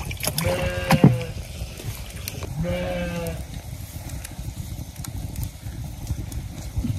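Livestock bleating twice, each bleat a sustained, steady-pitched call of under a second, the second about three seconds after the first. Faint crackling clicks from the open wood fire run beneath.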